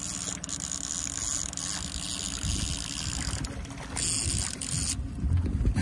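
A fishing reel being cranked to bring in a hooked kokanee, over the steady low running of the trolling boat's motor. There is a brief hiss about four seconds in and a few low knocks near the end.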